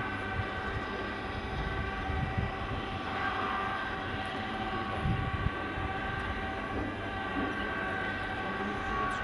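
SM42 diesel shunting locomotive heard from a distance as it approaches: a steady engine drone with a few constant whining tones over a low rumble.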